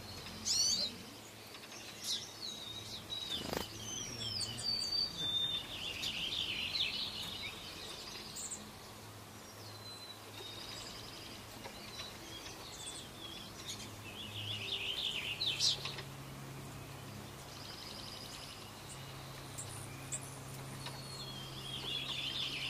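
Songbirds chirping and singing in short phrases on and off, with one sharp click a few seconds in and a faint low steady hum coming in about two-thirds of the way through.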